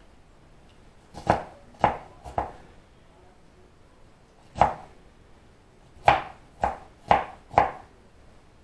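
Knife chopping on a cutting board: eight sharp chops, three in quick succession, a single one, then four more.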